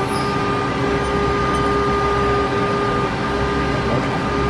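Trunnion rotary table of a Haas VF-6SS 5-axis machining center moving under power: a steady servo whine at two pitches over an even mechanical hum, the higher pitch dropping out briefly about three seconds in.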